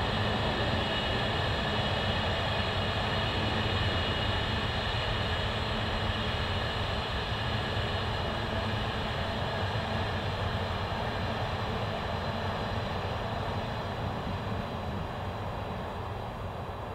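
Intermodal container freight train hauled by a Class 66 diesel locomotive rolling away: a steady rumble of the wagons and the distant diesel engine, slowly fading over the last few seconds.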